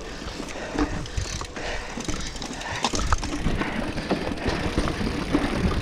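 Mountain bike ridden over a rocky, rooty dirt trail: tyres rolling and crunching over the ground while the frame and drivetrain rattle, with frequent short clicks and knocks.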